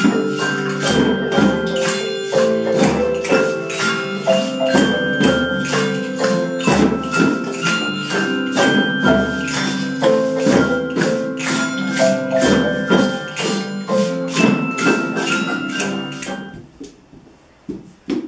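Live group music: children's hand drums keeping a steady beat, with acoustic guitar, saxophone and xylophone playing a tune. The music stops about sixteen seconds in, leaving a quiet room.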